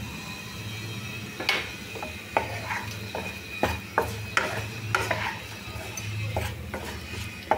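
Wooden spatula stirring fried potato cubes, capsicum and onion in a kadai, with irregular scrapes and knocks against the pan.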